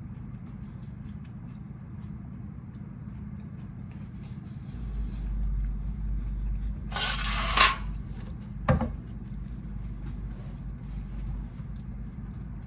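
Steady low room hum, with a deeper rumble joining about five seconds in. Over it comes one brief loud burst of handling noise, and a sharp click about a second later.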